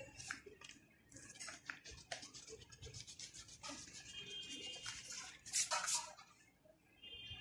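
Pencil scratching on exercise-book paper in quick short strokes, with a louder spell of eraser rubbing on the paper about five and a half seconds in.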